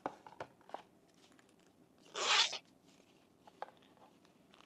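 Handling noise from a CIVIVI pocket knife and what holds it: a few sharp little clicks, one short louder rustle about two seconds in, then a couple more faint clicks.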